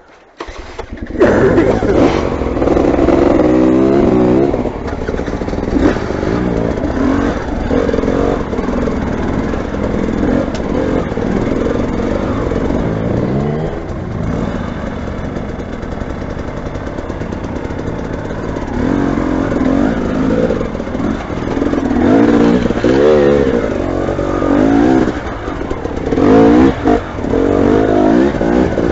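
Motorcycle engine running and revving up and down over and over, its pitch rising and falling; it starts suddenly about a second in.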